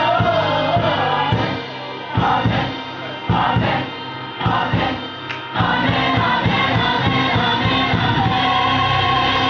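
Gospel choir singing with electronic keyboard accompaniment. The sound drops for a few seconds in the middle, broken by short loud accents, then the full choir comes back in, sustained.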